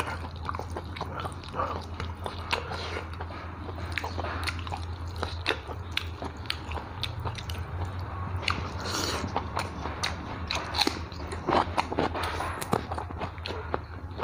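A person chewing mouthfuls of rice and fish close on a clip-on microphone, with many wet mouth clicks and smacks. A steady low hum runs underneath.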